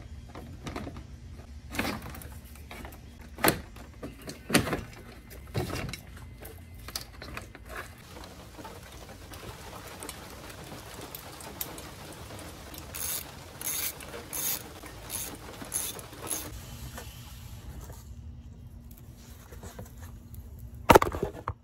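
Clicks, knocks and rattles of hand work in a car's engine bay as the plastic fan shroud and its clips are worked loose. About two-thirds of the way through comes a run of six even clicks, then one loud knock near the end.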